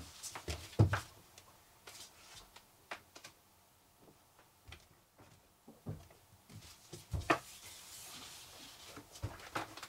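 Footsteps and scattered knocks as a person steps out through a magnetic mesh screen door and back in, with a heavy thump about a second in and another about seven seconds in. A soft rustle of the mesh curtain near the end as he pushes back through it.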